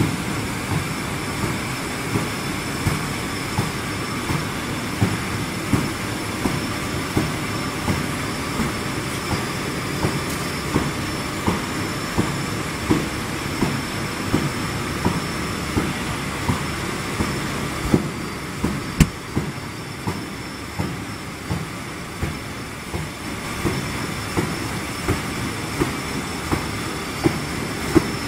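Paper honeycomb core production line running: a steady mechanical clatter from the roller machinery feeding kraft paper, with a sharp regular knock about once a second.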